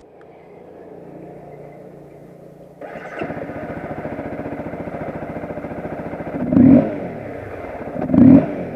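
Honda CBR250R single-cylinder engine idling with a rapid, even pulse, growing louder about three seconds in, then revved briefly twice near the end. Its intake is louder with the muffling cover taken off the air filter box.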